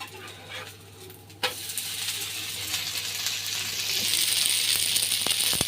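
Adai batter pancake turned over in a hot oiled pan: a sharp click about a second and a half in, then steady sizzling of the oil under the flipped side.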